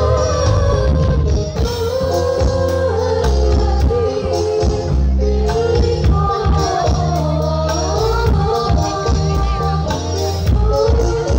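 Live sholawat (Islamic devotional song) played loud through a PA system: singing over a band with a regular drum beat and heavy, held bass notes.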